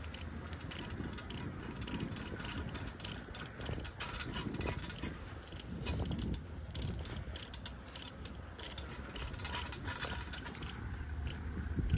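Bicycle coasting on a concrete path: the rear freewheel ticking with many quick, irregular clicks over a steady low rumble.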